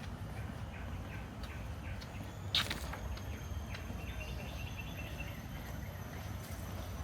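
Outdoor walking ambience: a steady low rumble of wind and footsteps, with one sharp click or knock about two and a half seconds in and faint high bird chirps a little later.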